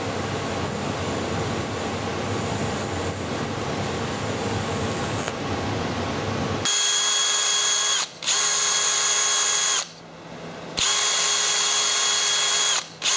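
TIG welding arc giving a steady crackling hiss for about six seconds. Then a cordless drill spins a small wheel against a metal fitting with a steady high whine, in four runs with short pauses between them.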